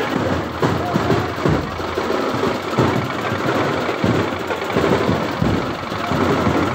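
Dhol drums beaten in a loud, rapid, driving rhythm amid a shouting crowd.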